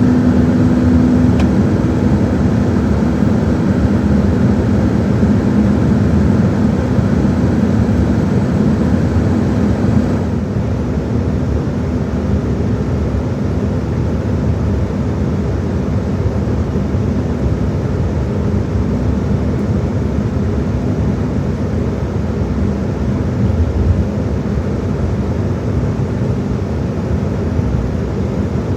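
Steady cabin noise inside an Embraer 195-E2 on the ground: a continuous rush of engine and air-conditioning noise with a low hum that drops away about ten seconds in, leaving the rush a little quieter.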